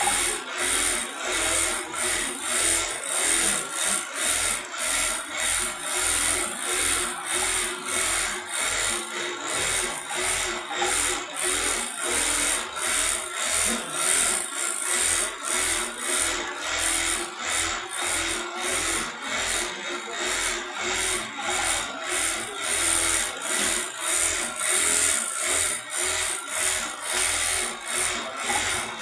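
JUKI computer-controlled pattern sewing machine stitching a quilting pattern through thick cotton jacket fabric: a steady mechanical rasping that pulses in an even rhythm.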